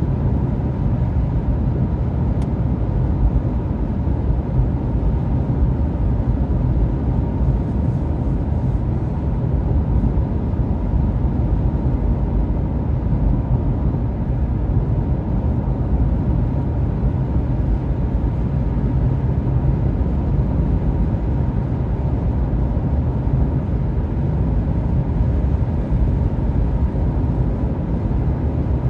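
Steady low road and tyre noise with engine hum, heard inside a car's cabin while cruising on a highway.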